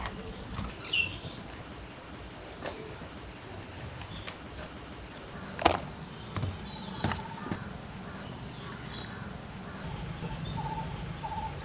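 Quiet rural ambience: birds chirping now and then over a faint steady insect hum, with a few short, light clicks and taps scattered through it.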